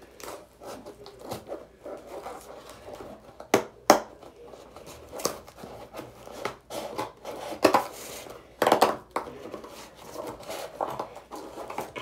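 A small taped cardboard package being opened by hand with scissors: irregular snips, scrapes and crinkles of tape and cardboard, with a few sharp clicks about four and about eight to nine seconds in.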